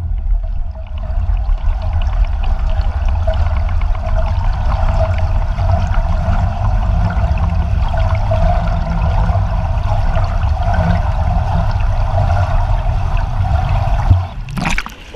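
Underwater swimming-pool ambience picked up by a submerged GoPro: a steady, muffled rumble and hiss of moving water. About a second before the end, the steady sound breaks off in a brief splash as the camera comes up out of the water.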